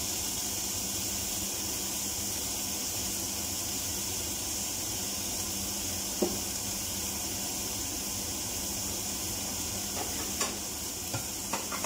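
Mixed vegetables and shredded chicken frying in oil in a pan, a steady sizzle. A light knock about six seconds in and a short click near the end.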